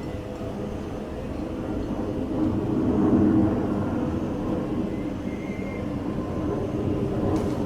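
Steady mechanical hum with several held tones, swelling a little about three seconds in.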